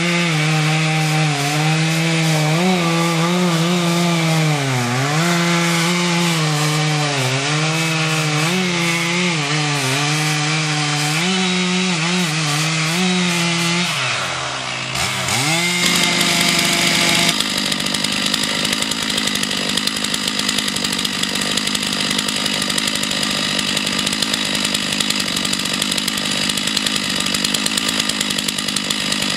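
Two-stroke chainsaw running at high revs while cutting wood, its pitch dipping again and again as the chain bites. About halfway through the revs drop briefly, then the saw runs on at a steady high pitch.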